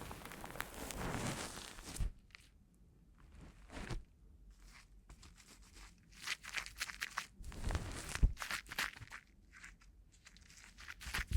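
Close-up rustling, then an irregular run of crackling and crinkling clicks from about halfway in.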